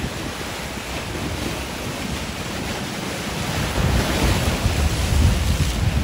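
Surf washing against a concrete breakwater, mixed with wind buffeting the microphone; the rumble grows louder about two-thirds of the way through.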